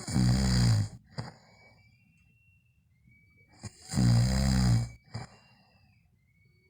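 A sleeper snoring loudly: two rattling snores about four seconds apart, each lasting about a second and followed by a brief, shorter sound, with a faint high whistle in the quiet between them.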